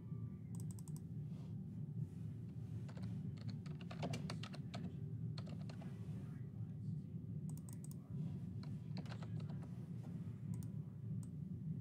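Typing on a computer keyboard in several short bursts of key clicks, with pauses of a second or more between them, over a steady low background hum.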